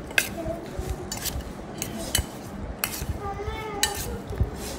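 Steel spoon stirring spiced lemon pieces for pickle in a stainless-steel bowl: soft scraping and squishing of the wet lemon pieces, with irregular sharp clinks of spoon on steel, about one or two a second, each ringing briefly.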